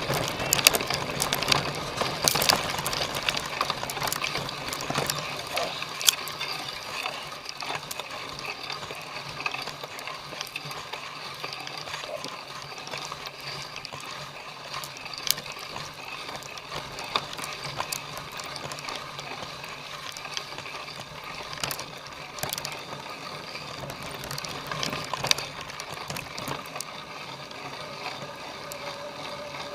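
Cyclocross bicycle being ridden: the chain and freewheel click and rattle, with occasional sharp knocks over rough ground.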